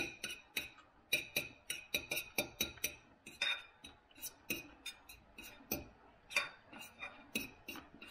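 Metal cutlery clinking and scraping on a dinner plate while eating, a steady run of light clicks about two or three times a second.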